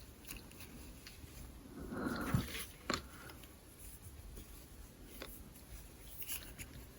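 Faint handling sounds as a small backpack is worked onto a plastic fashion doll: a soft rustle about two seconds in and a few light clicks.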